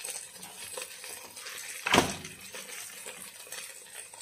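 One sharp clink against the cooking pot about two seconds in, over a faint sizzle of diced onion, garlic and whole spices frying in butter.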